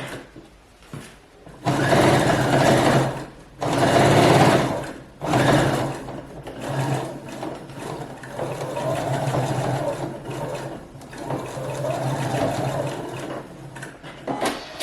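Electric sewing machine stitching down a zipper in a skirt's side seam, running in starts and stops. After a short pause come three brief loud runs, then a longer, quieter steady run.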